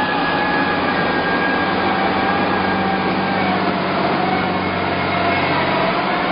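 Engine of a heavy logging machine running steadily under power, with a high whine over the engine note that drifts a little lower partway through.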